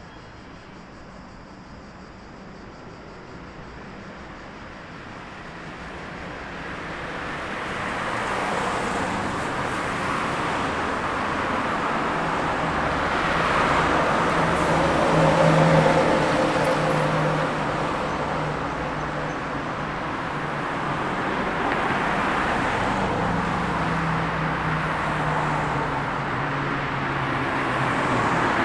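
City road traffic: a stream of cars passing, tyre and engine noise building from quiet to loud over the first several seconds and staying heavy, with the loudest pass about halfway through.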